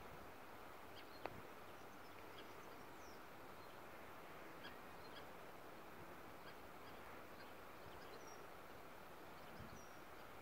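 Near silence: faint background hiss with scattered short bird chirps and a single sharp click about a second in.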